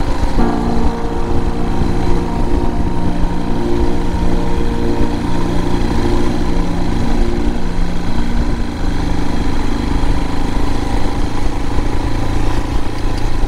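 Royal Enfield Himalayan's single-cylinder engine running at a steady cruise while riding, over a constant low rumble. The engine note fades back into the rumble about nine seconds in.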